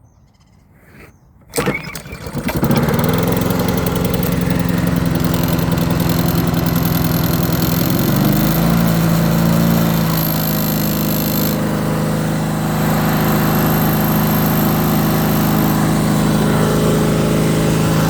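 Honda HRR216 lawn mower's single-cylinder engine cold-started: it catches about a second and a half in and settles into a steady run, its pitch stepping up slightly around eight seconds in.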